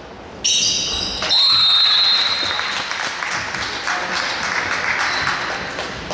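Sounds of play on a gym basketball court. Sudden high squeaks and calls start about half a second in, with a sustained high squeal or whistle-like tone after them, and a ball bouncing on the hardwood.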